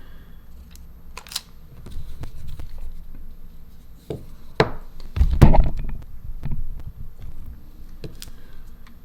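Small clicks, taps and rustles of hands and small tools working on an opened smartphone, with a louder bump and rustle about five seconds in.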